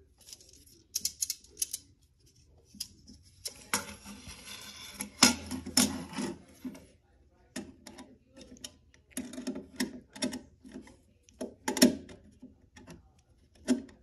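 Small screwdriver clicking and scraping against the metal terminal screws of a plastic smoke detector base, in irregular taps, with a longer rasping scrape from about four to seven seconds in.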